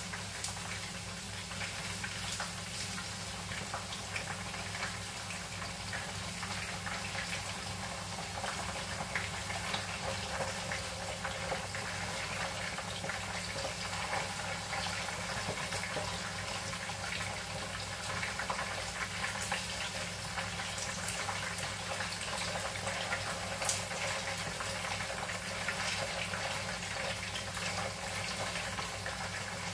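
Chicken wings deep-frying in hot oil in a wok: a steady sizzle with fine crackles and pops.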